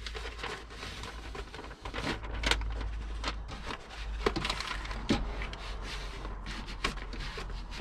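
Self-adhesive decorative film being handled and smoothed by hand over a wet mirror, pressing out air bubbles: irregular rubbing and crinkling with scattered soft taps and clicks.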